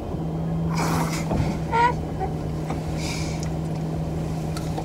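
Steady low hum of the car running, heard from inside the cabin. It comes on just after the start and holds even, with rustling handling noises about a second in and again near three seconds. A short high-pitched squeak comes a little under two seconds in.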